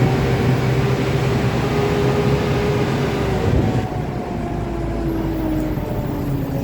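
A vehicle's engine running steadily under way, its pitch slowly falling in the second half.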